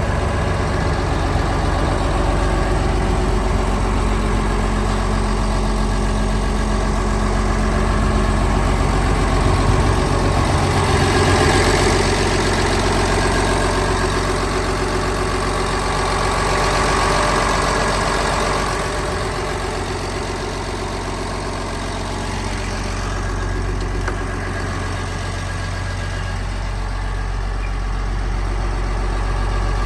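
Liebherr PR756 bulldozer's diesel engine running steadily with a low drone. The mid-range noise swells louder twice, about a third of the way in and again just past the middle, then eases back.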